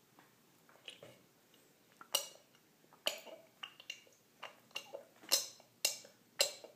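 A toddler drinking from a plastic cereal bowl tipped up to her mouth: a quick run of short gulping and slurping sounds, about two a second, starting about two seconds in.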